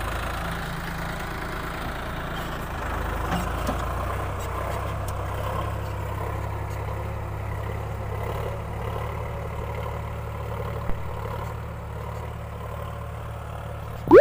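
Sonalika Sikander RX 35 tractor's three-cylinder diesel engine running steadily under full load in high gear, pulling a ridger that cuts drainage furrows through dry soil. A brief loud rising swoosh comes at the very end.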